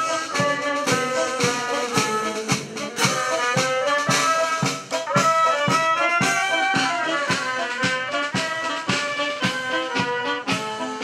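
Brass band playing a tune over a steady drum beat, about two beats a second.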